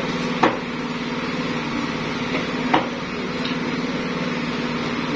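Two sharp knocks of a large knife chopping into a wooden stump chopping block, about two seconds apart, over a steady mechanical hum.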